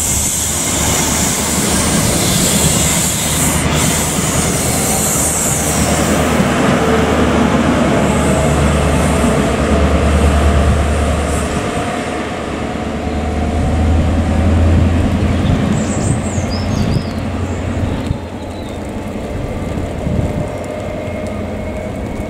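Class 43 HST diesel trains: a steady low diesel drone with rolling wheel noise that fades over the first few seconds as one set pulls away, then an approaching HST power car's engine. A brief squeal of wheels on rail comes about two-thirds of the way in.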